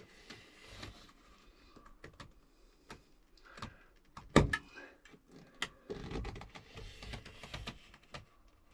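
Utility knife scoring a vinyl floor plank along a speed square: several scraping strokes of the blade, with scattered clicks and a sharp knock about four and a half seconds in.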